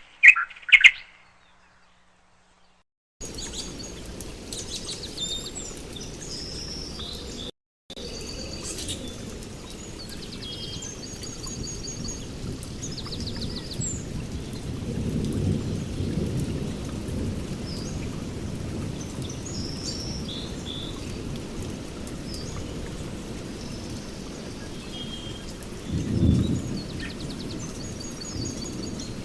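Small birds chirping, then a steady rain-like hiss with short high trills and chirps over it. A low rumble of thunder swells about halfway through and again near the end.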